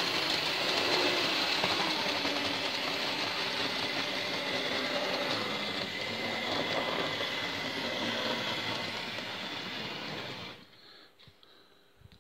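Hornby OO-gauge model trains running on the layout's track: the steady whine of the locomotive motors over the clatter of the wheels on the rails. The sound stops abruptly about ten and a half seconds in, leaving only faint small ticks.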